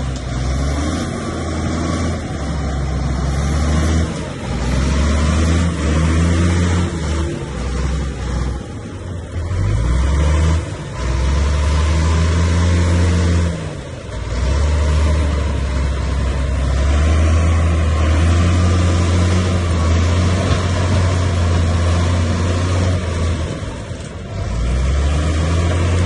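Bulldozer's diesel engine running under changing load, its low drone rising and falling in pitch and loudness, with brief easings about halfway through and near the end.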